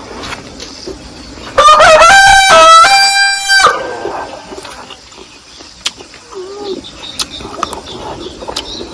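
A rooster crows once, a single crow of about two seconds starting about one and a half seconds in.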